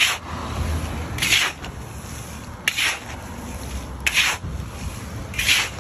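A wire-mesh sieve ladle scraping through sand in a large iron wok and sand pouring back through its mesh as fryums are sifted out. It comes as about five short, sharp gritty strokes, one every second and a half or so.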